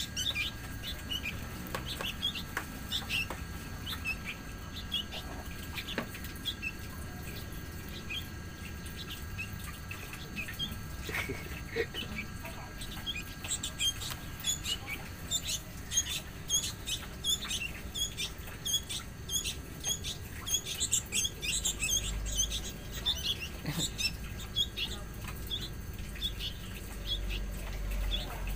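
Small songbirds chirping with many short, high chirps as a tame sooty-headed bulbul tries to feed another bird. The chirping grows busier about halfway through, with a few low rumbles near the end.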